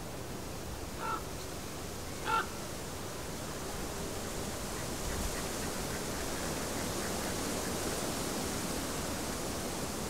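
Steady rush of the flowing river, with two short calls from a bird, about one and two and a half seconds in.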